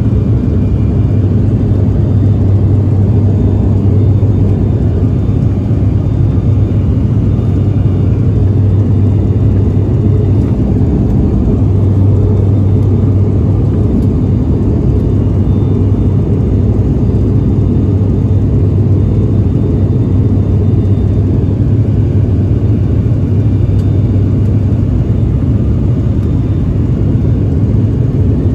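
Cabin noise of an ATR 72-500 in flight: its Pratt & Whitney PW127 turboprop engines and six-bladed propellers make a loud, steady low drone, heard from inside the cabin at a window seat beside the engine.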